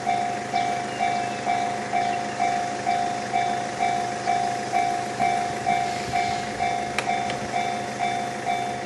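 Japanese railway level-crossing warning bell ringing in a steady, even repeat of a little over two dings a second, sounding while the barriers are down. A single sharp click comes about seven seconds in.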